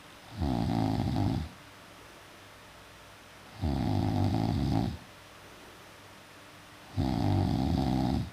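Loud snoring: three snores, each a little over a second long, about three seconds apart.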